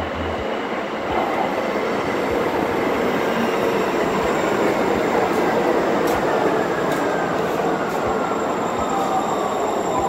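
A MAX light-rail train arrives at an underground platform, its wheels rumbling on the rails. A thin whine falls slowly in pitch as the train brakes and slows, with a few light clicks from the wheels and track.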